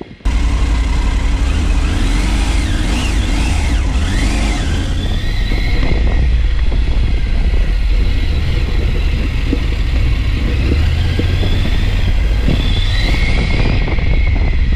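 Triumph Tiger 900's three-cylinder engine running as the bike is ridden slowly over dirt, heard from on the bike with a heavy low rumble. The engine revs up and down a few times in the first seconds.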